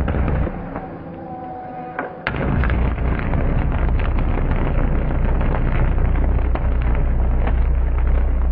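Electrical short circuit arcing: scattered crackles and snaps, then about two seconds in a sudden loud onset of continuous dense crackling over a deep, steady hum.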